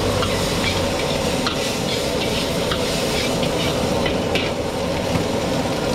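Meat stir-frying in a wok over a high gas flame, with oil flaring up in the pan: steady loud sizzling, and the metal ladle knocks against the wok a few times.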